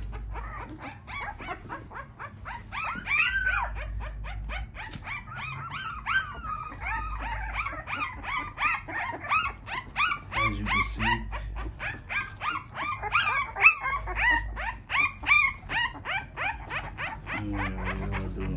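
A litter of two-week-old pocket bully puppies crying, with many short, high-pitched cries overlapping several a second. The crying grows busier about three seconds in.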